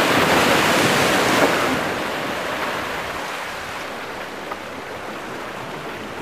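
Sea and wind noise on an outdoor microphone: a loud rushing hiss for the first second or two that eases off into a steadier, lower wash.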